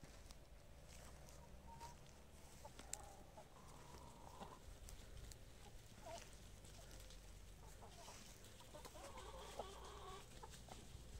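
Brahma chickens clucking faintly and softly, in two short runs of low murmuring clucks, one a few seconds in and one near the end.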